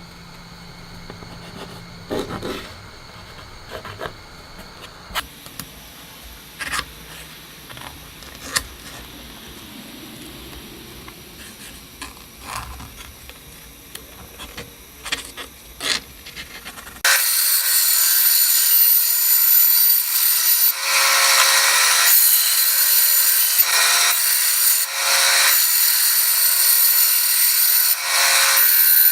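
Light handling taps and clicks, then, a little past halfway, a bandsaw starts cutting quarter-inch plywood: a loud steady running sound with surges as the blade goes through the wood.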